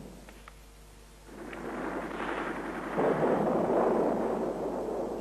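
A rumbling noise that swells in about a second in, is loudest in the second half, then fades, with a few faint ticks before it starts.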